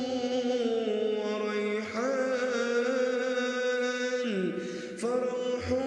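A man's voice reciting the Quran in melodic tajweed style, holding long, slowly gliding notes. The phrase breaks briefly about two seconds in and again just after four seconds.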